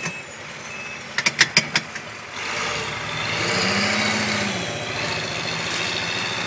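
A motor vehicle's engine running, swelling up and easing back down about four seconds in, after five quick sharp clicks a little over a second in.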